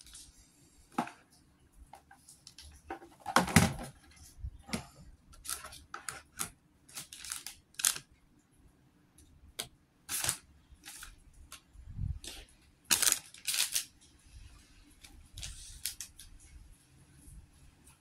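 Irregular clicks, taps and crinkles of small plastic LEGO minifigure pieces and their blind-bag packaging being handled, with louder clatters about three and a half seconds in and again around thirteen seconds.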